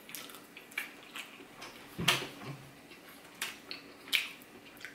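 Close-miked eating sounds: wet mouth and chewing smacks and the light clicks of a fork against a plate, about half a dozen short sharp sounds spread through a quiet background.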